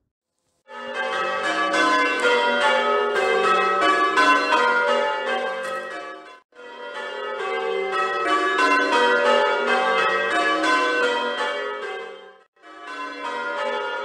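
Change ringing on St Mary's church bells, rung full circle from ropes: a rapid, steady succession of overlapping bell strikes. It starts under a second in and cuts out abruptly for a moment twice.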